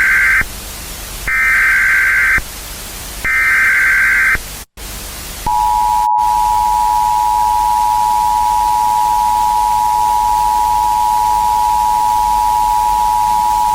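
Emergency Alert System end-of-message over a steady static hiss: the tail of one burst of SAME digital data tones, then two more full bursts, each a harsh buzzing screech about a second long. About five and a half seconds in, a steady two-tone EAS attention signal starts and holds.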